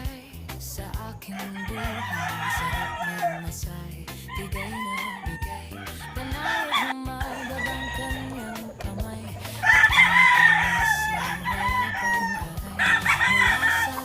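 Rooster crowing several times, among other chickens; the loudest crow comes about ten seconds in. Music plays underneath.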